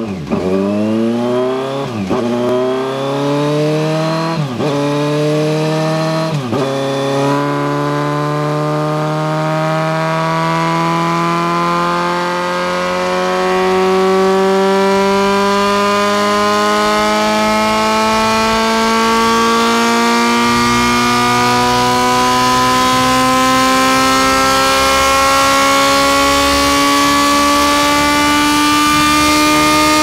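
Kawasaki Z900's inline-four engine running through an SC Project 4-2-1 full titanium exhaust system. The note dips briefly four times in the first seven seconds, then holds steady at raised revs that slowly climb, the headers heating up.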